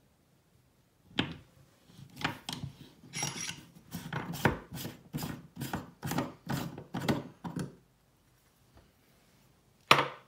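Metal parts of an Oras bathroom mixer tap scraping and clicking as the handle housing is worked back and forth and pulled off the tap body, in short strokes about twice a second. A single sharp click near the end.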